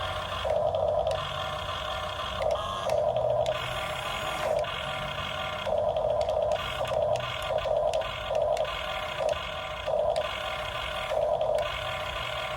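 Radio-controlled model excavator's electric drive whining in short, irregular bursts, starting and stopping with each control movement, over a steady low hum.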